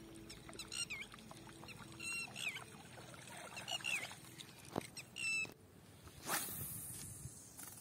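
A string of short, high, squeaky chirps, each falling at its end, over the first five seconds, followed about six seconds in by the swish of a spinning rod cast through the air.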